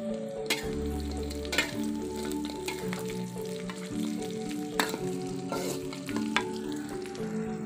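Metal spatula stirring and scraping fried tempeh and vegetables in a large metal wok, over a steady frying sizzle, with several sharp clinks of the spatula against the wok.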